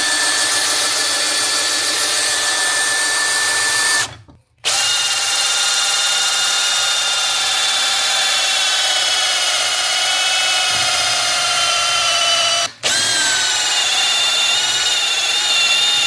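Electric drill turning a diamond hole-saw bit that is grinding through marble tile: a steady whine over a grinding hiss. It breaks off for about half a second some four seconds in and again very briefly near the end.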